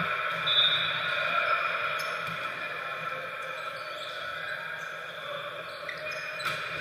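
Volleyball being bounced and struck on a gym court, over a steady hum in a large echoing hall. There are two sharp smacks of hands on the ball, about two seconds in and near the end.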